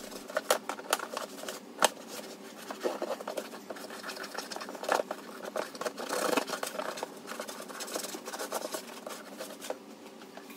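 A rag scrubbing and rubbing over a plastic tackle box, with irregular clicks and knocks as the hard plastic is handled.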